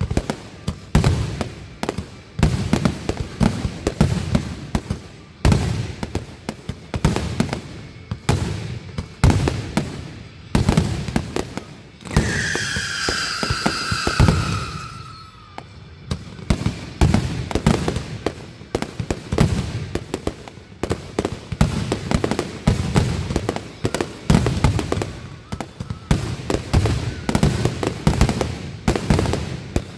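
Fireworks going off in a rapid, continuous barrage of booms and crackling bursts, with a long falling whistle about halfway through.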